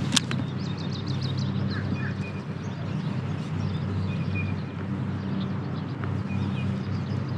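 Steady low hum with small birds chirping on and off, and one sharp click just after the start.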